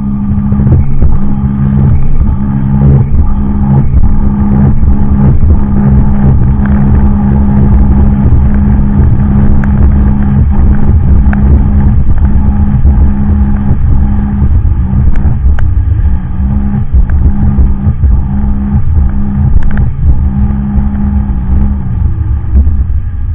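Sea-Doo personal watercraft engine running steadily at speed, a loud drone under a heavy low rumble, with frequent short knocks. Near the end the engine note drops away as the throttle eases.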